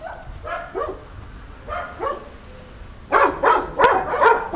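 Dogs barking: a few scattered barks, then about three seconds in a louder run of rapid barks, several a second.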